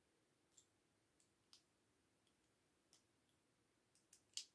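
Small plastic LEGO bricks clicking faintly as they are handled and pressed together, a scattering of irregular clicks with the sharpest one near the end.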